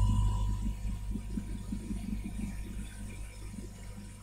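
Low steady hum from workbench equipment, with faint irregular ticks, slowly fading.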